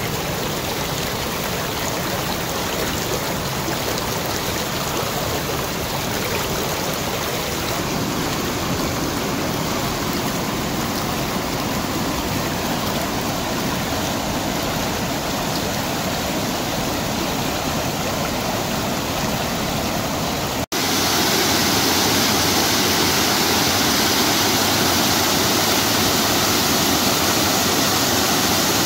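Shallow stream water flowing steadily. About two-thirds of the way in, it cuts abruptly to a louder, hissier rush of water spilling over the steps of a small concrete weir.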